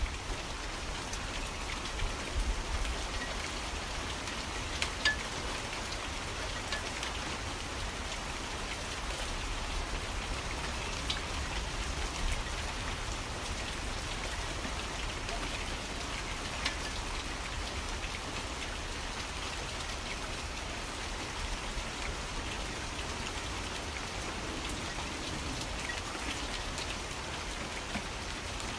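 Steady rain falling on a surface, an even hiss of many drops with a low rumble underneath and a few sharper, louder drop ticks now and then.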